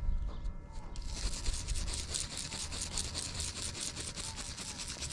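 Rubbing dirt off a freshly dug, corroded coin by hand: a fast, scratchy back-and-forth scrubbing, about six strokes a second, starting about a second in. Faint bird chirps sound behind it.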